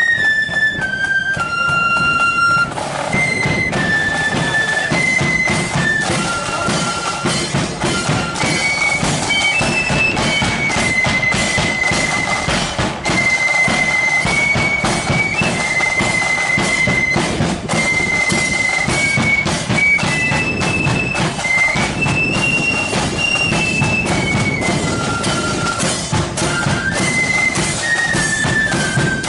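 Marching flute band playing a tune in unison over drum beats. The flutes carry one high melody of held notes that step up and down.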